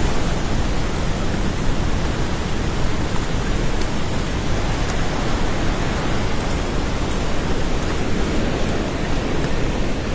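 Flash-flood torrent of water, mud and debris rushing past, a loud, steady, unbroken noise.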